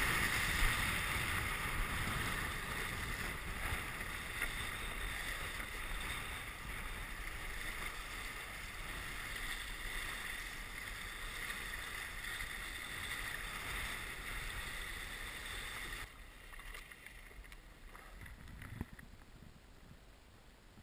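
Wind buffeting the microphone and water rushing past a windsurf board under sail, steady and slowly fading. About 16 seconds in it cuts off suddenly to a much quieter hush, with a single knock near the end.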